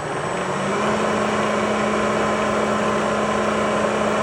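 Bridgeport milling machine's spindle motor spinning up, its hum rising over the first second, then running steady with the end mill turning free, not yet cutting.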